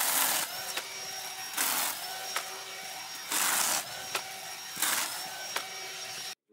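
Worx 20V Jawsaw cordless electric chainsaw running steadily while its chain cuts through small branches four times, about every second and a half. Each cut is a short, loud burst of noise, and the motor's whine climbs back up in pitch after each one as the load comes off.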